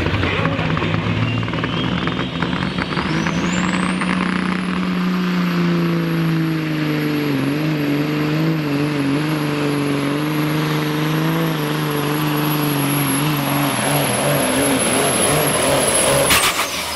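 Limited pro stock semi truck's turbocharged diesel engine at full power pulling the sled, its turbocharger whine climbing steeply over the first few seconds and then holding high and steady. Near the end the engine is cut off with a sharp burst of noise, and the turbo whine winds down.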